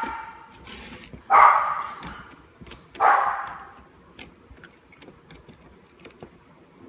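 A dog barking twice, about a second and a half apart, each bark sudden and fading out; faint small clicks follow in the second half.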